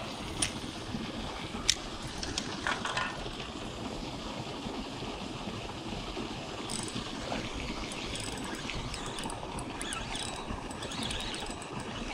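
Steady rush of river water pouring over a small spill, with a few sharp clicks in the first couple of seconds.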